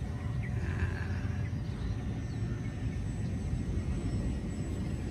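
Motor of a small radio-controlled Storch model plane droning faintly as it flies overhead, under a steady low rumble.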